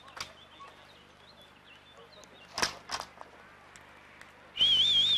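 Two thumps about a third of a second apart just past halfway, as a pole vault ends on the foam landing mat. Near the end, a loud whistle is blown in a warbling trill.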